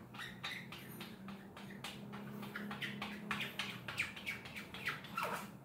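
Small squeegee dragged along the edge of an aluminium screen frame, pressing frame adhesive through the screen-printing mesh: a quick, uneven run of short squeaky scrapes, with one longer falling squeak near the end.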